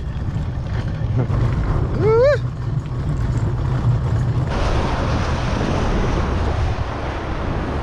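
Kayak cart wheels rolling over rough asphalt, a steady low rumble, with one short rising pitched cry about two seconds in. About halfway through, a steady hiss of wind and surf comes in over the rumble.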